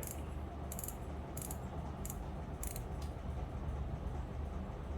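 Drag alarm clicker of a Seahawk Lite Pro SW 800 spinning reel, clicking as the spool turns against the drag. A C-clip rubs over the serrated part of the spool and gives a light, sharp click about every two-thirds of a second, stopping after about three seconds.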